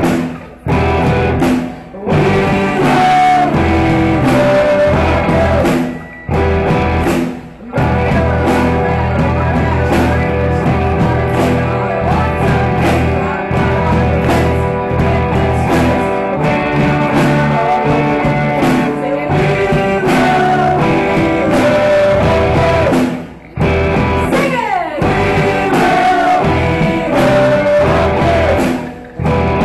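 Live rock band playing electric guitars and drums, with several brief stops in the playing.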